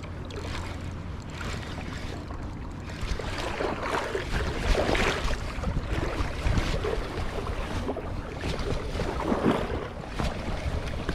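Wind rumbling on the microphone over moving water, with irregular louder rushes and splashes through the middle.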